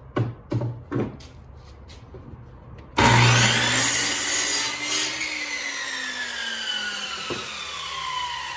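A few knocks as a wooden board is set against the fence, then about three seconds in a compound miter saw starts abruptly and cuts through the board. The motor's whine then falls steadily in pitch as the blade coasts down.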